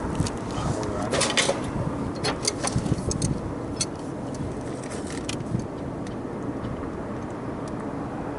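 Scattered light clicks and clinks of tools and metal parts being handled during work on a rooftop refrigeration compressor, over a steady background rumble. The clicks come in small clusters, mostly in the first half.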